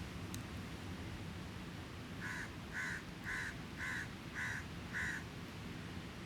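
A crow cawing six times in an even series, about two calls a second, over a steady low wash of beach and campfire ambience.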